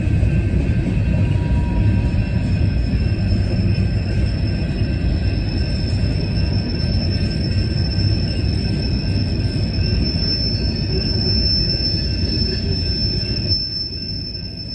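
Freight train of covered hopper cars rolling past: a steady heavy rumble of wheels on rail, with a thin, high wheel squeal setting in about two seconds in and growing stronger near the end.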